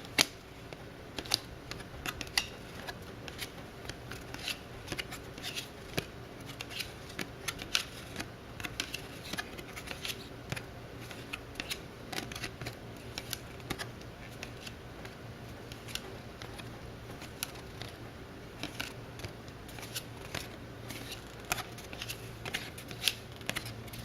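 Trading cards being handled and flipped through one by one. The card stock gives irregular light clicks and snaps over a faint steady hum.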